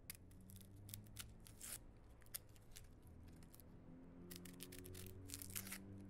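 Onion being peeled by hand: faint papery crackles and rustles of the skin coming away, in a burst during the first two seconds and again about four to six seconds in, over a quiet room's faint low hum.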